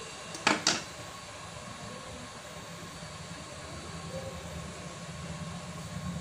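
Steady rushing hiss of a HIKO 858D hot air station's blower, with two sharp clicks close together about half a second in.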